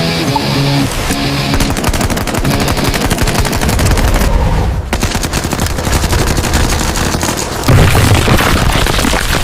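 Rapid machine-gun fire, a dense unbroken run of shots over background music, with a sudden loud blast about eight seconds in.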